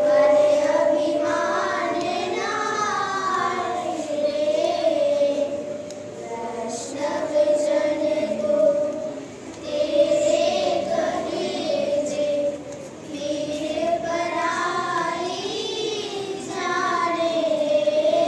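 A group of children singing a song together into a hand microphone, in phrases of long held notes with short breaks between them.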